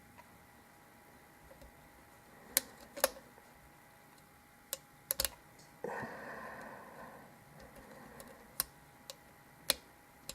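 Lock pick and tension wrench working in the keyway of a Zeiss Ikon euro cylinder during single-pin picking: scattered sharp metal clicks as the pick lifts pins, with a short scrape about six seconds in.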